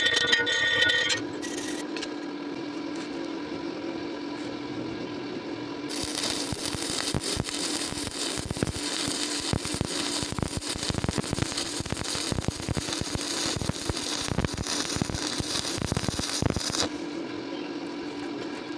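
An electric welding arc crackles and sizzles for about ten seconds, starting about six seconds in and cutting off suddenly, over a steady hum. A short, loud tonal sound fills the first second.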